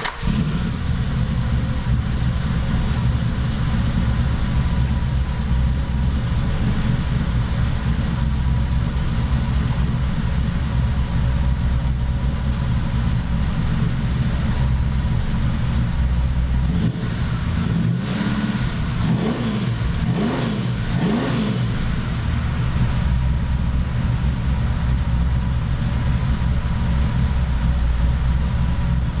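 A pickup truck's carbureted engine, running on a freshly programmed MSD 6AL-2 ignition timing curve, fires up at the start and then idles steadily. In the middle it is revved about three times, the pitch rising and falling, before settling back to idle.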